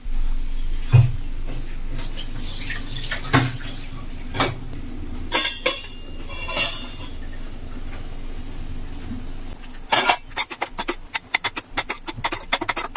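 A few metal clinks over a steady background, then from about ten seconds in rapid scraping and clinking of a spoon stirring thick masala in a steel kadhai.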